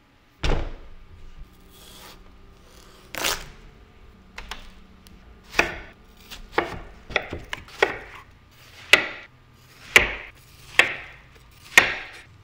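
Knife chopping food on a cutting board: about a dozen separate sharp strokes at uneven spacing, coming about once a second near the end.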